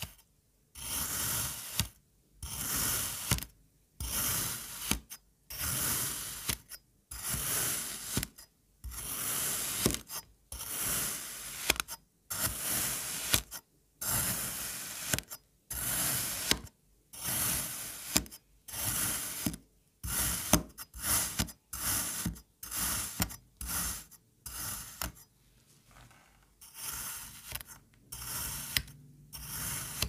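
Crinkle-cut wavy blade slicing through moulded kinetic sand, close-miked, one cut about every second. The cuts come quicker and shorter about two-thirds of the way through.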